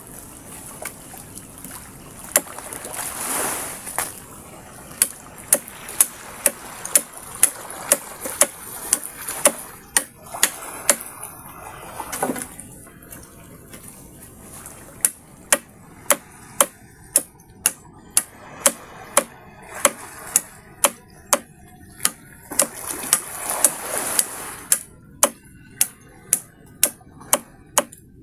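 A knife chopping bamboo and wood in regular strokes, about one and a half to two a second, in several runs with pauses between. Small waves wash softly on the shore underneath.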